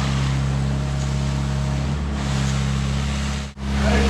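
Concrete pump truck's diesel engine running steadily at working speed, a constant low drone with hiss over it, cutting out for an instant about three and a half seconds in.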